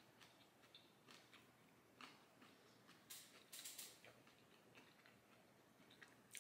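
Faint chewing of a panko-breaded fried couscous mac and cheese ball: soft crunches and small mouth clicks, loudest about three seconds in.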